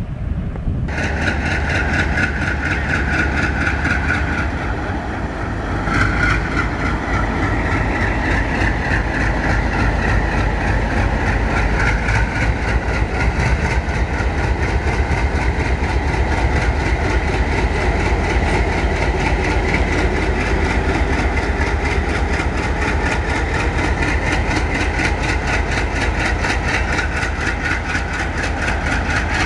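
ALCo diesel locomotive engine running with a fast, even throb as it hauls passenger coaches past.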